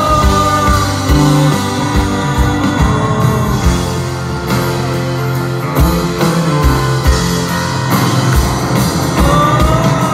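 Live rock band with an orchestra playing loudly: drum kit, acoustic guitar, violins and trumpet together.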